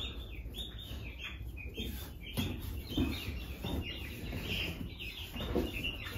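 Small birds chirping in short, quick calls repeated over and over, over a low steady background rumble.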